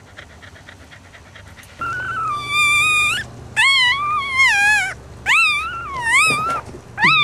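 Newborn Cavalier King Charles Spaniel puppy crying: four high-pitched, wavering squeals starting about two seconds in, the first the longest.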